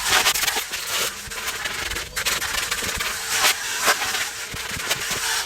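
Vacuum cleaner running as a car interior is hoovered: a steady rushing hiss with a faint hum underneath and frequent short clicks and knocks.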